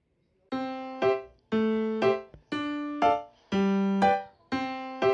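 Background music: a piano-like keyboard tune starts about half a second in, with about two notes a second, a longer note alternating with a shorter one.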